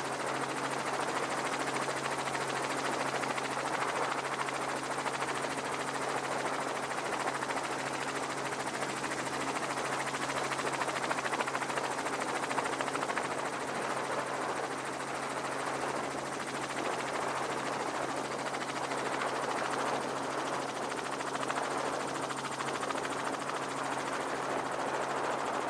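Helicopter running steadily, a constant hum of its engine and rotor with an even rushing noise over it and no change in pitch.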